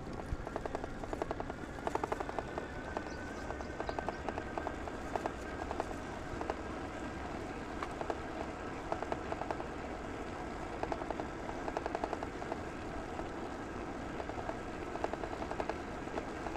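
Riding noise from a bicycle on the move: wind buffeting the microphone, with a rapid, even ticking and rattle going on steadily throughout.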